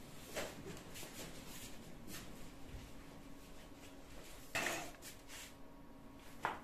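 Quiet room tone broken by a few brief rustles and knocks from a person moving about and leaving, the loudest a short scuffing noise about four and a half seconds in.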